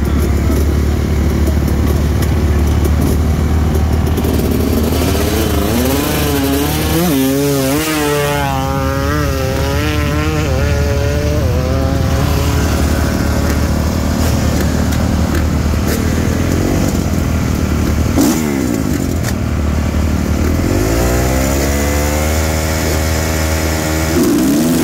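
Dirt bike engines: one idles close by with a steady low drone, while others rev hard and run down the track, their pitch climbing and falling, once in the middle and again near the end.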